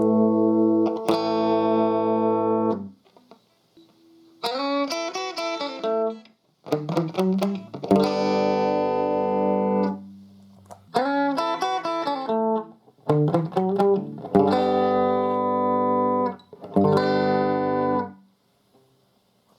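Electric guitar played through a guitar amplifier, with strummed chords in short phrases that ring out and stop, separated by brief pauses.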